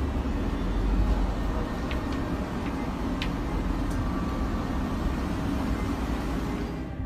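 Steady low rumble and hiss of a vehicle driving along a flooded road in heavy rain, heard from inside the cab, with a few faint clicks a couple of seconds in.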